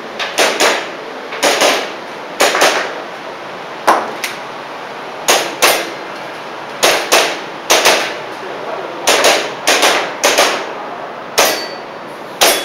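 Airsoft pistol shooting a rapid string of about twenty shots, mostly as quick double taps with a short pause between each pair, during an IPSC-style practical shooting run.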